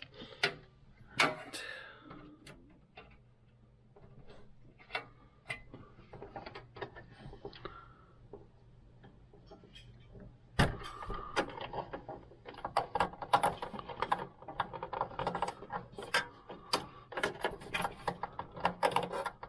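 Hands working cables and parts inside a metal computer case: scattered clicks and light knocks, then from about halfway a dense clatter of clicking plastic and rustling wires.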